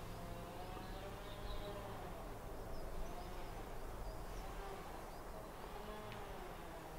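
Quiet garden ambience with an insect buzzing faintly, its pitch wavering as it moves, and a few faint bird chirps.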